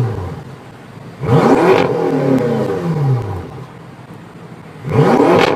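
BMW F10 M5's twin-turbo V8 revved twice in place through an aftermarket exhaust. Each rev climbs sharply and then falls back toward idle, about a second in and again near the end.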